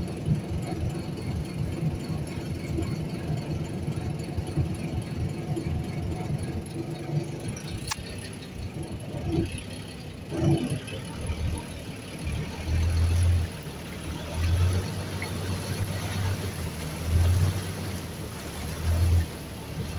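River ferry boat's engine running with a steady hum, easing off about eight seconds in. In the second half come low thumps every second or two.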